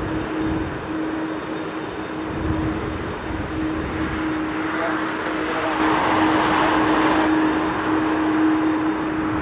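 Airbus A330-202's General Electric CF6-80E1 turbofan engines running at taxi idle: a steady rushing drone with a steady low hum, swelling louder for a couple of seconds past the middle.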